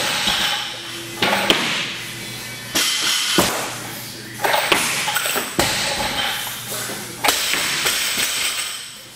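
Music playing in a large, echoing gym room, broken by a few sharp knocks. The strongest is a deep thud about three and a half seconds in, typical of a loaded barbell's plates meeting the platform.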